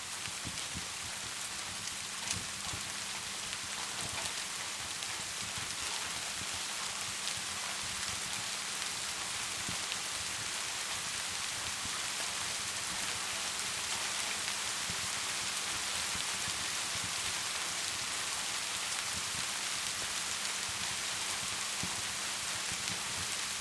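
Steady rain falling as a dense, even hiss, with a wood fire crackling under it in scattered small pops, one louder pop about two seconds in.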